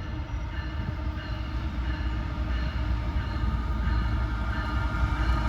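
Diesel locomotives of a freight train approaching, a heavy low rumble with some steady engine tones above it, growing steadily louder.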